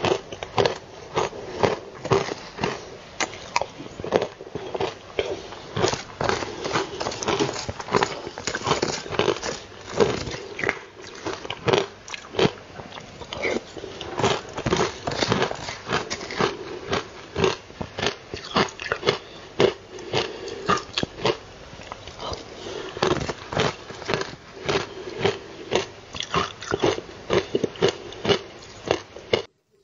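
Close-up crunching of ice bitten and chewed in the mouth: a dense, irregular run of sharp crunches that stops abruptly near the end.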